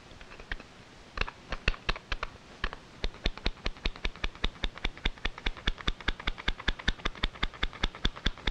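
Squeeze-handle flour sifter clicking as it is worked by hand, sifting flour into a measuring cup. A few scattered clicks, then a steady run of about five clicks a second from about three seconds in.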